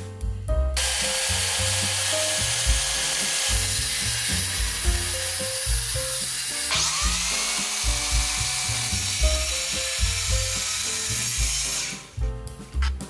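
Handheld electric circular saw running and cutting a wooden board, starting about a second in and stopping near the end. Its pitch drops sharply about halfway through.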